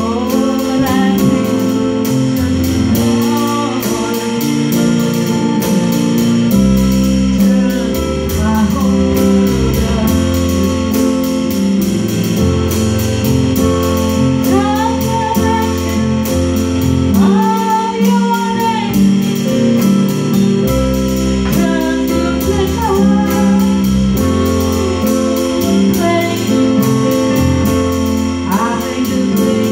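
Live small-band music: two electronic keyboards playing held chords and a bass line, a woman singing the melody, and a drum kit keeping time with steady cymbal strokes.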